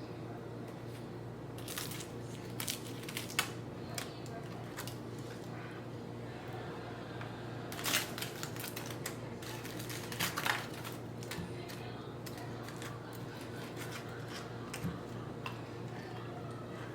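Scattered light clicks and taps of kitchen utensils and a baking tray being handled, with two louder clatters near the middle, over a steady low hum.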